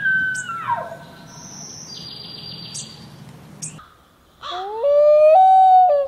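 A bull elk's bugle ends with its high whistle held and then dropping away in the first second. After a quieter stretch with a few short high chirps, a common loon gives a wail that rises from low and holds a steady high note, loud, to the end.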